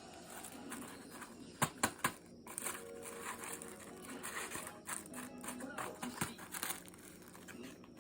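Packaging being handled and crinkling during unpacking, with three sharp clicks close together about two seconds in.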